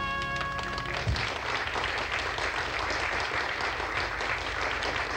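The accompaniment's final held chord stops about a second in with a brief low thump, and a studio audience breaks into steady applause.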